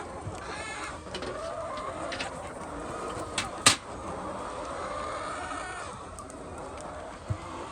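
Many hens clucking together, with two sharp clicks about three and a half seconds in.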